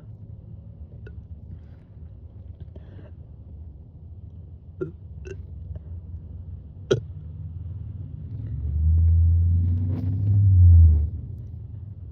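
A woman's long, deep burp in two swells, brought up from carbonated water, about eight seconds in. It follows a few short clicks and sits over a steady low hum.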